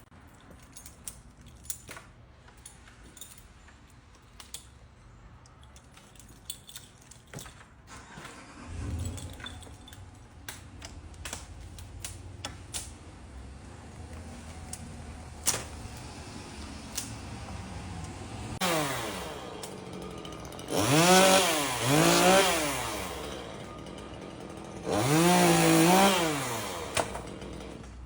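Chainsaw engine revved in several short bursts in the second half, its pitch climbing and falling with each squeeze of the throttle. Before that, scattered clicks and knocks over a low hum.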